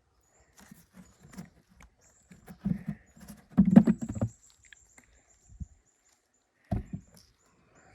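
Wooden beehive frames and hive parts being handled: soft scraping and tapping, with a louder clunk about four seconds in and another near seven seconds.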